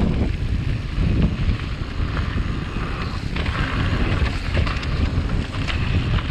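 Wind buffeting the microphone as a mountain bike rolls fast down a loose gravel trail, with steady tyre rumble and scattered clicks and rattles from the bike over stones.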